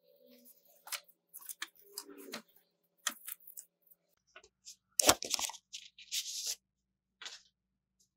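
Paper and packaging being handled: scattered crinkles, rustles and clicks, with the loudest cluster about five seconds in.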